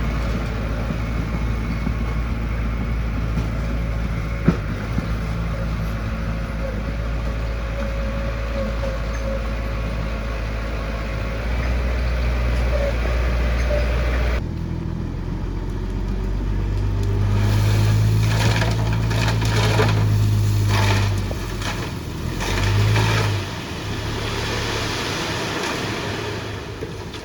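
Heavy diesel earthmoving machinery running: a steady low engine drone, then, after a sudden change about halfway through, a louder engine that swells and dips, with repeated clanks and knocks.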